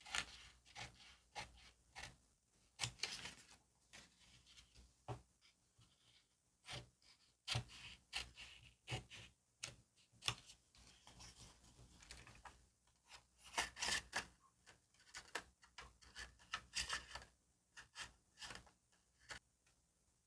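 Stickers and paper being handled and stuck down for diary decorating: irregular sharp taps and clicks mixed with crinkly, papery rustles, in small clusters throughout.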